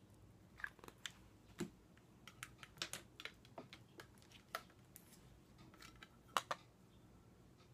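Plastic makeup cases and tools being handled: a string of irregular light clicks and taps, the loudest about six seconds in.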